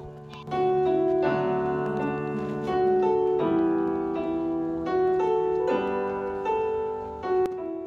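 Background piano music with slow, held chords.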